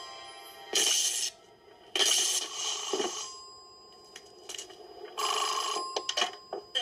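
Cartoon telephone ringing in three separate bursts, with a few sharp clicks near the end as the handset is lifted off the wall phone.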